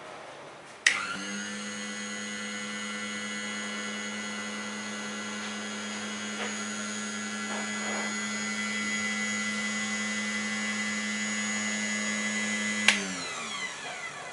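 Dental lab dry model arch trimmer's grinder motor (a 4500 rpm spindle) switched on with a click about a second in. It runs free at a steady pitch with a high whine, then a second click near the end switches it off and it spins down with a falling pitch.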